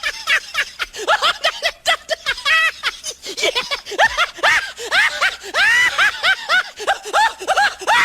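Laughing sound effect: a high-pitched laugh in rapid, repeated "ha" syllables.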